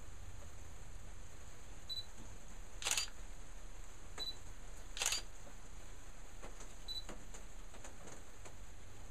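Two short sharp clicks about two seconds apart, with a few fainter ticks between them, over a steady low hum and hiss.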